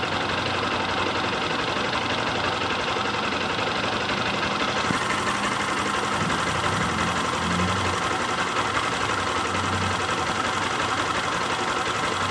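Honda CG 160 Start's single-cylinder four-stroke engine running steadily, with a mechanical noise that the owner is unsure is normal.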